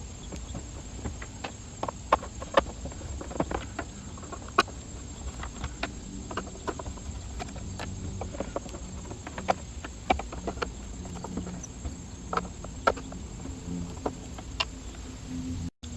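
Irregular clicks and light knocks of hands and a tool working on the plastic housing of a Bissell upright vacuum as it is being opened up to reach the brush belt.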